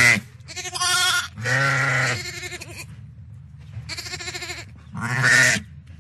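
Farm animals bleating, about five wavering calls one after another over a steady low hum.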